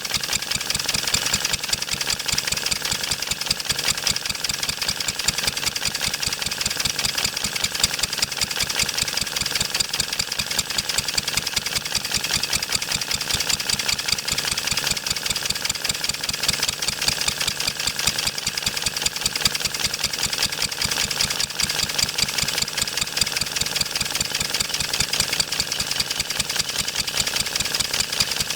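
1954 Wolseley WD8 stationary engine running steadily and working hard under load, a fast, even beat of firing strokes with no change in speed.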